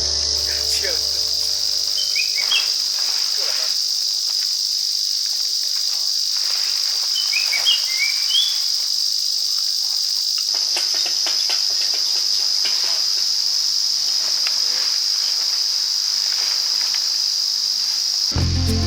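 A steady, high-pitched chorus of insects, with a few brief higher chirps about two and eight seconds in.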